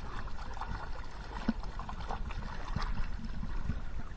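River water sloshing and lapping close by, with small irregular splashes as people wade in the current.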